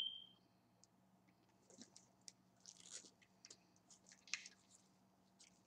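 Faint, scattered rustling and crinkling of paper packaging as a new mini waffle maker is opened and a paper insert is pulled out from between its plates.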